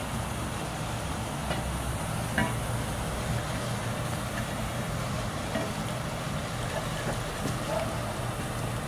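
A steady low engine hum, like a motor vehicle idling, under a wash of water noise, with a few brief knocks and splashes; the sharpest knock comes about two and a half seconds in.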